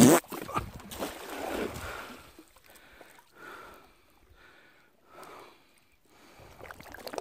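Water splashing and sloshing as a wading fisherman works a cast net: a sharp splash at the start, then several softer swishes of water.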